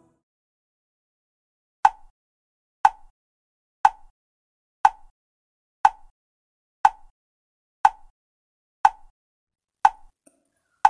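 Sharp, short ticks, evenly spaced at one a second, beginning about two seconds in, each with a brief ring.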